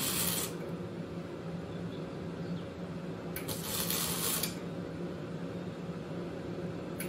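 Arc welding done in short runs: a crackling hiss lasting about a second that starts and stops roughly every three and a half seconds, three times, over a steady low hum.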